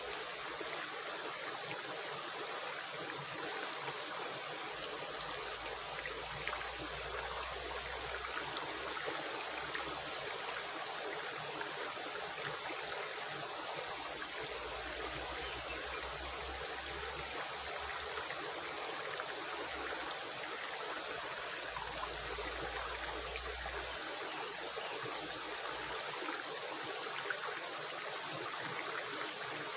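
Stream or small river running steadily, a continuous rushing of water with a busy, gurgling texture.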